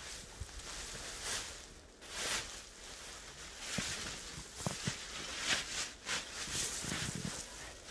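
Clear plastic sheeting of a shelter rustling and crinkling in irregular swishes as a person moves about inside it, with a few soft low knocks.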